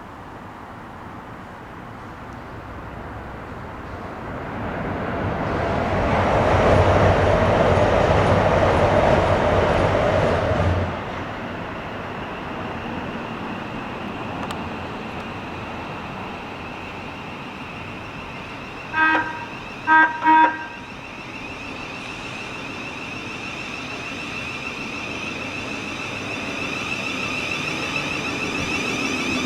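A train passes, building to its loudest and cutting off sharply about eleven seconds in. A little later a train horn gives three short toots. Then a steady whine grows louder as another train approaches.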